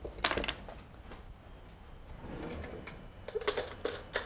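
A few quick knocks on a wooden cutting board as the split cucumber halves are laid down. Near the end, a kitchen utensil drawer is rummaged for a spoon: a run of sharp metal clinks from cutlery.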